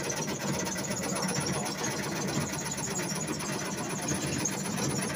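Tobacco shredding machine running, its blades chopping tobacco leaves into fine shreds with a steady, fast rattling.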